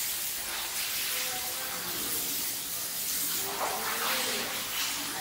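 Steady hiss of running water echoing in a tiled room, with faint voices in the background.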